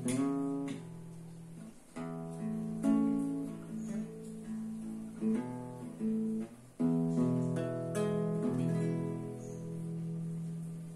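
Nylon-string classical guitar strummed slowly, chords struck every second or two and left to ring, the last chord fading out near the end.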